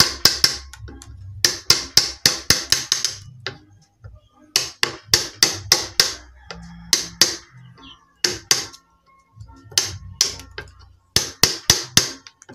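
Wood chisel being driven into a wooden slab by hammer blows: sharp strikes in quick runs of several a second, with short pauses between runs.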